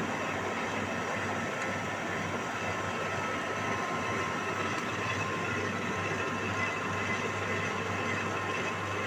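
Drilling machine running steadily under power, an even mechanical drone with a low hum and faint higher whine.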